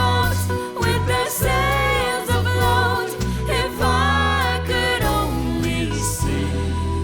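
Band music with a lead singer's vocal over a bass line that changes notes every second or so; the singing drops out near the end while the band plays on.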